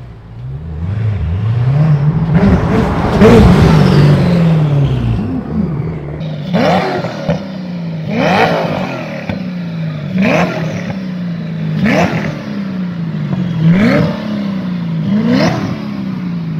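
Koenigsegg Agera's twin-turbo V8 accelerating hard, loudest about three to four seconds in, then revved in short blips about every two seconds, each rising sharply and dying away.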